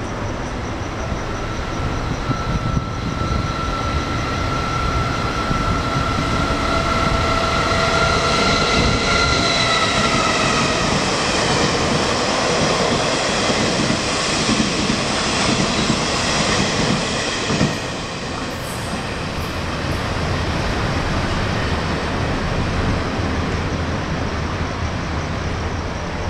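Taiwan Railways parcel train 4003 passing close by at speed. A steady, slightly rising high tone carries for the first ten seconds or so as it approaches. Then comes the loud rumble and clatter of the coaches rolling past, which drops suddenly as the last car goes by about eighteen seconds in, leaving a fainter rumble.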